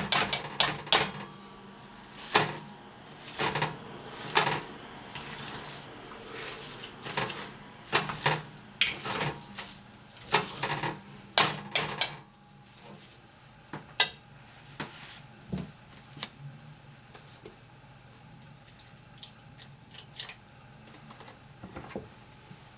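Metal spiral potato masher knocking and scraping against a steel pan while mashing boiled kale and potatoes, in quick irregular clanks. About twelve seconds in the knocks become sparser and softer.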